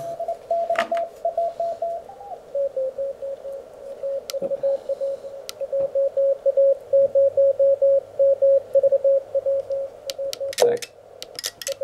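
Morse code (CW) signal heard through the Elecraft K1 transceiver's receiver: a single steady tone keyed on and off in dots and dashes. About two seconds in, the tone drops slightly in pitch as the radio is retuned. A few sharp clicks come near the end.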